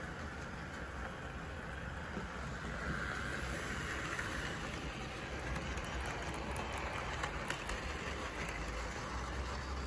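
Bachmann OO gauge LMS Crab Class model locomotive running on the layout's track, hauling a coach past close by: a steady motor hum and wheel rumble, with a few light clicks about halfway through.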